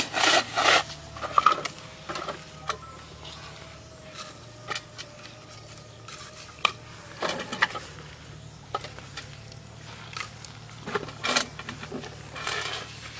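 Plastic bottles knocking against a metal basin and against each other as they are lifted out one at a time: scattered clunks and rattles, the loudest in the first second or so as the basin is set down.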